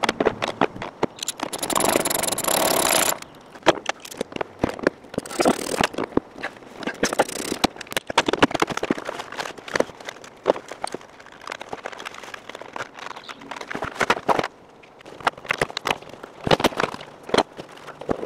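Hands and tools working on a car's interior trim and fittings: a rapid, irregular run of clicks, knocks and scraping, with a longer, louder stretch of scraping about a second in.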